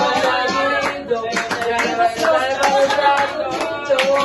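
A song with singing, and a group of people clapping along in a steady rhythm from about a second in.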